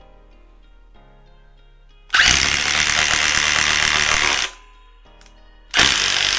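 Cordless impact driver hammering as it bores a 1.5-inch bit into wood. It runs in two bursts: one of about two seconds starting two seconds in, then a shorter one near the end.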